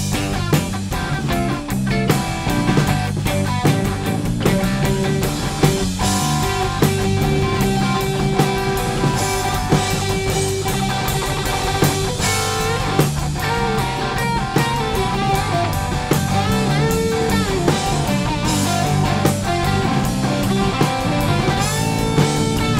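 Instrumental rock jam on two electric guitars, electric bass and a drum kit playing together. The lead guitar holds long notes and bends them in pitch, about halfway through and again near the end.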